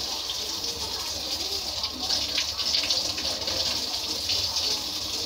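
Kitchen tap running steadily into the sink, with hands rubbing and rinsing something under the stream.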